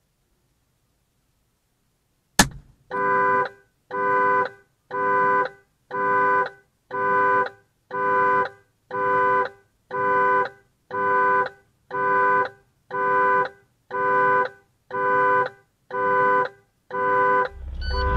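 A sharp click, then a car horn sounding in evenly spaced honks, about one a second, some fifteen times.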